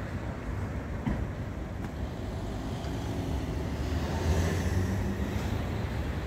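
Low, steady rumble of street traffic, swelling about four seconds in as a vehicle passes.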